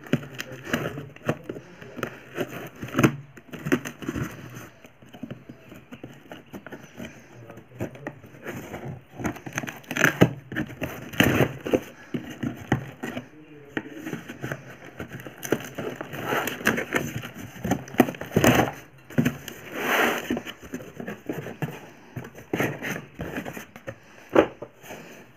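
A tape-wrapped cardboard parcel being cut and torn open: irregular rips, scrapes and crinkles of packing tape, plastic wrap and cardboard.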